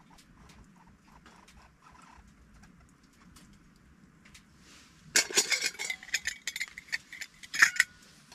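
Stainless steel camp mugs and cook pot clinking and rattling as they are handled and a nested mug is pulled apart, after a few seconds of faint small taps; the clatter comes in a quick burst of clinks with a ringing metal tone about five seconds in, loudest just before the end.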